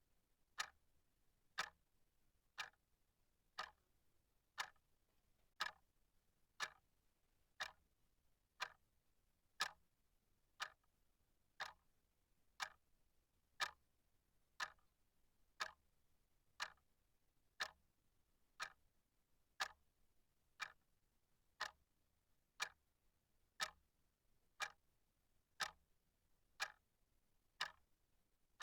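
Clock ticking steadily, about one tick a second, with near silence between the ticks.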